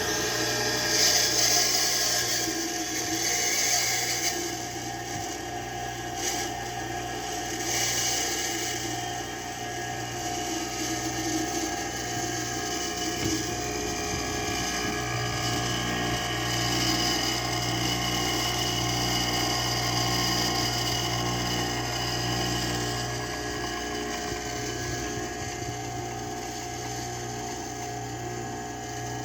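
Kawamoto N3-156SH well pump's motor running with a steady hum and an abnormal noise, a sign of a fault in the unit.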